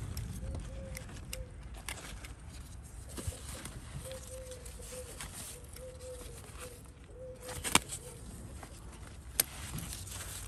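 Garden pruning shears snipping eggplant leaves: two sharp clicks, one about three-quarters of the way through and one near the end, over the rustle of leaves being handled. A bird calls in the background in short, low, repeated notes.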